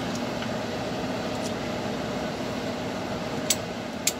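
Two short, sharp metal clicks near the end as a disc brake pad is seated in its caliper bracket, over a steady background hum.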